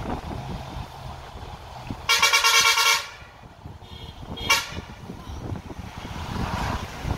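Bus horn: one honk of about a second, with a rapid flutter, about two seconds in, then a short toot a moment later. Underneath runs the steady rumble and wind noise of the bus moving along the highway.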